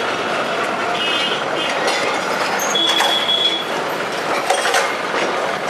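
Kolkata tramcar running along street track: steady rumble and rattle of the car on the rails, with a short high-pitched tone about three seconds in and a few sharp clicks near the end.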